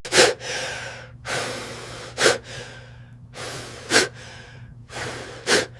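A person coughing four times, one sharp cough every one and a half to two seconds, with a noisy breath drawn in before each.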